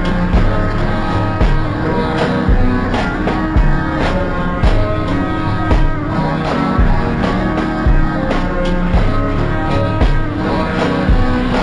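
Music: an extra-slowed French rap track, with a deep kick drum hitting about once a second under sustained melodic notes.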